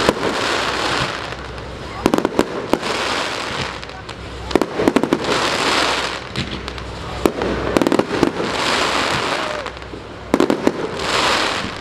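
Fireworks going off in clusters of sharp pops and crackles with a hissing sizzle, a new volley every two to three seconds.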